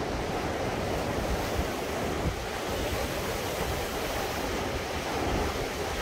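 Steady wash of sea waves, with wind buffeting the microphone in low rumbling gusts.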